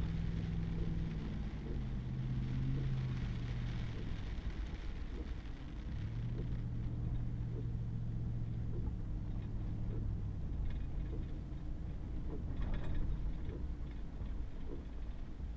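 Pickup truck driving on a wet gravel road, heard from inside the cab: a steady engine hum over tyre and road hiss. The engine note steps down in the first few seconds and rises again about six seconds in. A few short ticks come about two-thirds of the way through.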